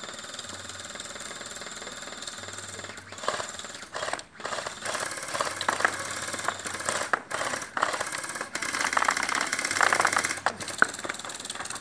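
Electric gel blasters firing on full auto: rapid mechanical rattling in bursts, louder and more frequent from about three seconds in.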